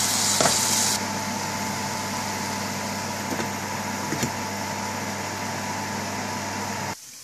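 A steady motor hum with hiss in the kitchen while a pan simmers on a gas hob. The high hiss drops after about a second. There are light metal clicks, one about four seconds in as the aluminium lid is set on the pan.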